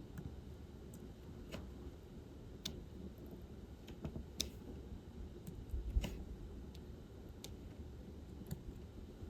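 Light, irregular plastic clicks of a diamond painting pen picking up resin drills and pressing them onto the canvas, about one or two a second, over a faint low hum.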